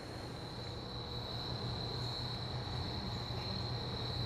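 Crickets trilling steadily at one high pitch, over a faint low background hum.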